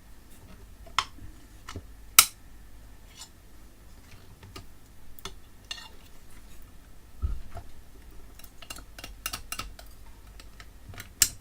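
Irregular light clicks and taps of small metal parts and tools being handled while a nut is worked onto a threaded stud inside a UPS, with a few sharper clicks and one duller knock about seven seconds in.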